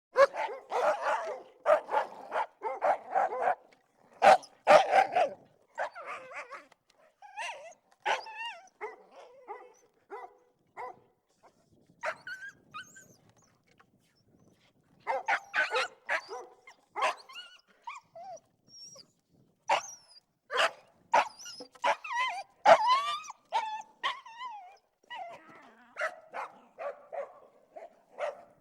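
Dogs barking in repeated bursts of short, sharp barks, with a sparser lull partway through and some higher, pitch-bending calls later on.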